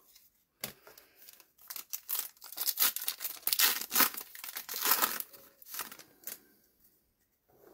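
Foil wrapper of a trading card pack being torn open and crinkled by hand: irregular crackling and tearing that starts about half a second in, is loudest in the middle and dies away near the end.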